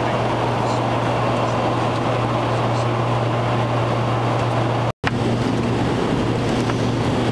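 Steady cabin drone of a small aircraft's engines, heard from inside the cabin: a constant low hum over rushing noise. The sound drops out for an instant about five seconds in.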